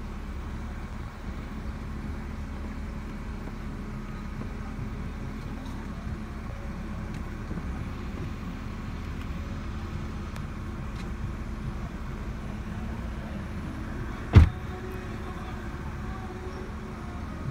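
Steady low rumble of background noise, with one sharp knock about fourteen seconds in.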